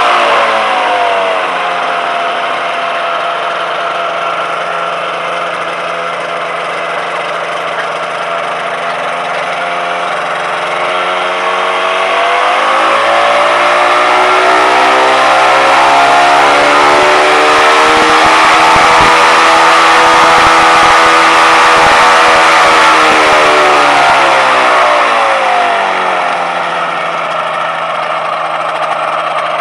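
Rotax 582 two-stroke engine of a 1995 Ultravia Pelican ultralight running on the ground. It drops back to idle in the first couple of seconds and idles steadily, with the propeller not turning because of its centrifugal clutch. About halfway through it is run up to higher revs, held there for about ten seconds, and brought back down to idle near the end.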